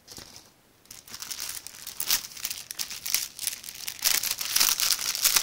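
Clear plastic packaging crinkling as it is handled and pulled open: a rapid string of crackles that starts about a second in and gets louder from about four seconds in.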